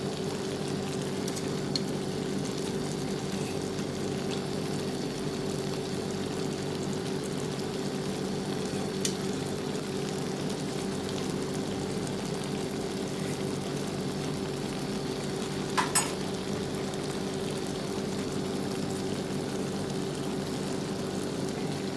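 Shrimp sizzling steadily as they fry in garlic butter in a pan, over a steady low hum. Two short sharp clicks of the metal spatula against the pan, about nine and sixteen seconds in.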